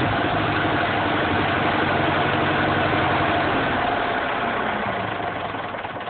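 Fordson Major tractor's four-cylinder diesel engine idling steadily, then slowing and dying away over the last second or so as it is shut off.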